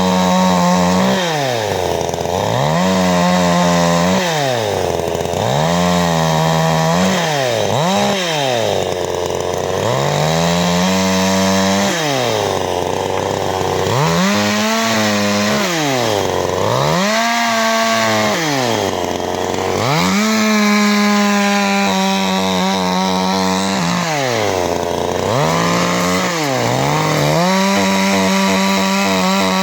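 CanFly 54.6 cc two-stroke chainsaw engine revved about ten times in a row: the throttle is opened to full, held for a second or two, then released back to idle.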